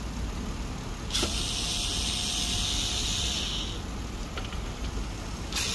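Cordless electric screwdriver running, turning out the cover screws of a car engine ECU's metal case: a high whir that starts about a second in, runs for about two and a half seconds and stops, then starts again near the end.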